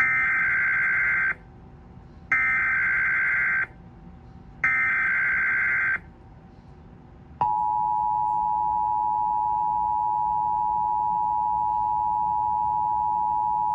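Emergency Alert System tones on a radio broadcast, opening a tornado watch alert: three short warbling bursts of SAME digital header data, about a second apart, then about seven seconds in the two-tone attention signal starts and holds steady.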